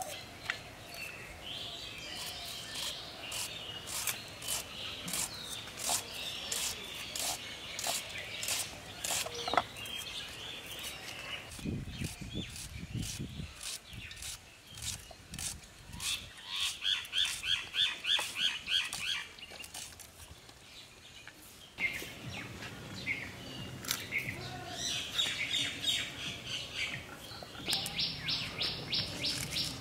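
Birds chirping, with several quick runs of rapidly repeated high chirps. Under them are sharp clicks of red onions being cut on a boti, a fixed curved kitchen blade.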